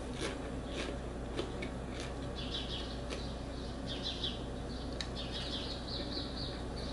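Popcorn being chewed with the mouth closed: faint, irregular crunches over a low steady hum.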